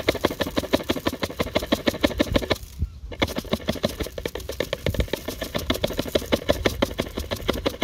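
Rapid, even tapping on a red plastic funnel seated in the neck of a plastic water bottle, knocking clogged brown sugar down through its narrow spout. The tapping pauses briefly about three seconds in.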